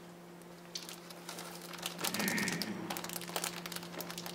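Rapid, irregular clicks and crinkling rustle, starting about a second in, over a steady low electrical hum.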